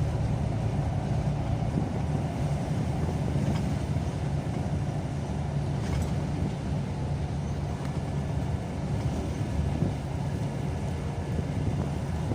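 Car driving at a steady speed: engine and tyre noise as a constant low hum.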